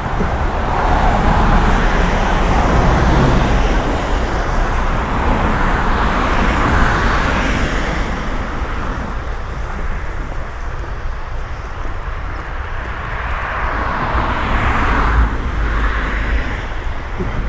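Cars passing on a wet street, their tyres hissing as each one swells up and fades away, about three passes in all, over a low steady rumble.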